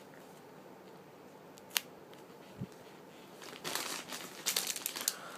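A sharp click a little before two seconds in and a soft thump, then crinkling and rustling from about three and a half seconds in that gets louder, like plastic wrapping being handled around squishy toys.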